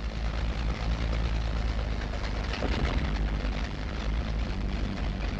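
Propeller aircraft engines droning steadily, heard through the hiss of a 1930s film soundtrack.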